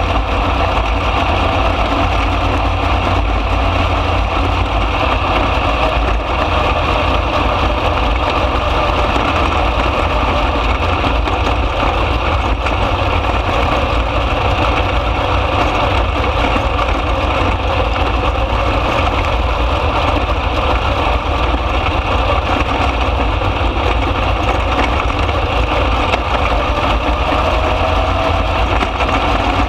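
A 305 sprint car's V8 engine running hard at racing speed, heard from inside the open cockpit: a loud, steady drone with little change in pitch.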